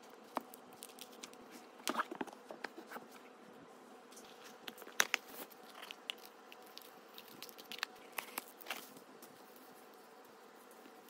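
Hands handling small packages: crinkling plastic and paper packaging with scattered clicks and taps, the sharpest around two seconds and five seconds in, over a faint steady hum.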